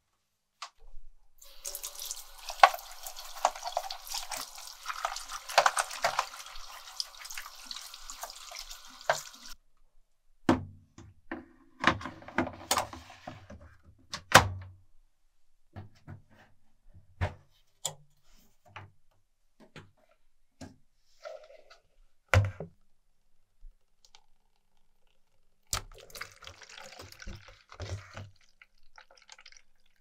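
Water from a tap running for several seconds over the removed plastic detergent drawer, cutting off abruptly, then a series of hollow plastic clunks and clicks. Near the end comes a shorter trickle of water as the washing machine's emergency drain hose empties into a container.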